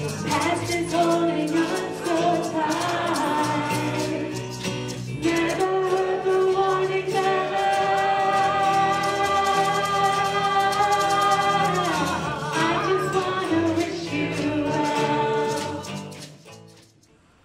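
Music with a singing voice holding long notes over a steady low accompaniment, fading out near the end.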